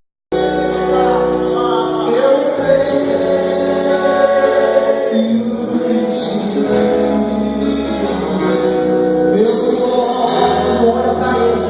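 Gospel worship music: a group of voices singing long held notes over instrumental accompaniment with a sustained bass line, starting abruptly just after the opening.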